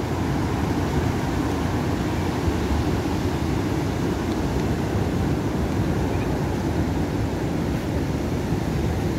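Rough sea surf breaking on a sandy beach: a steady roar, heaviest in a low rumble.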